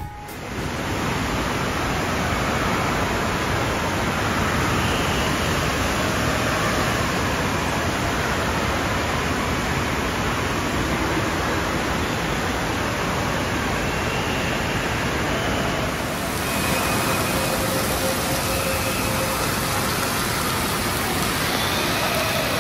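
Steady rush of running and splashing water from water-park attractions, echoing in a large indoor water-park hall.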